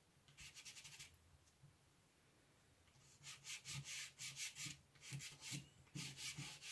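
Chalk pastel stick scraped back and forth across paper in quick, faint scratchy strokes: a short run just under a second in, then steady strokes from about three seconds in.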